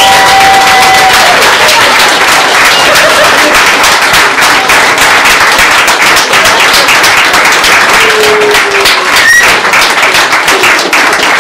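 A roomful of wedding guests applauding: steady, dense clapping with a few cheers.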